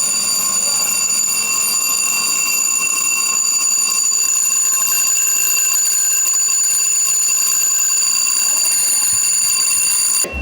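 Boiler control alarm sounding a steady, unbroken tone that cuts off suddenly near the end: the steam drum high water level alarm, raised because the drum was filled with a little too much water.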